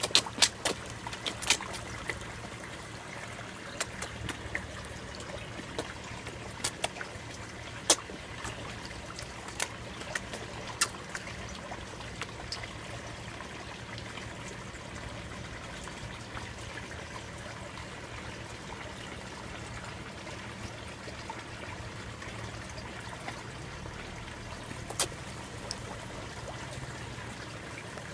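Koi sucking and smacking at the water surface as they feed on a corn cob, giving sharp wet pops, many in the first ten seconds or so and only a few later, over a steady trickle of pond water.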